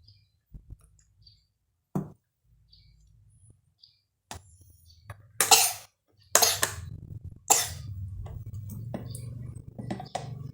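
A small toy washing machine's motor starts up about six seconds in and runs with a low steady hum. Handling clicks and a few loud short bursts come just before and as it starts.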